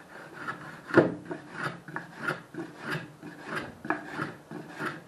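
Homemade wooden hand plane worked quickly back and forth over a wooden board, each stroke a rasping scrape of the blade shaving the wood, about three a second. The stroke about a second in is the loudest.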